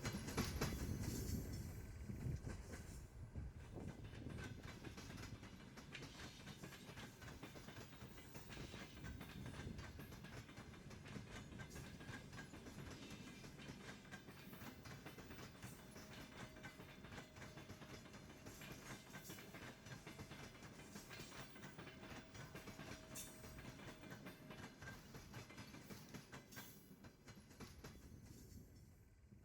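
A train running away into the distance, its wheels clicking over the rail joints, the rumble fading steadily until it is faint.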